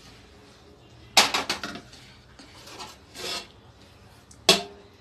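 Aluminium pot lids and plates clattering as a biriyani pot sealed for dum cooking is opened. There is a sharp metal clatter about a second in, a brief scrape around three seconds, and a single clank near the end.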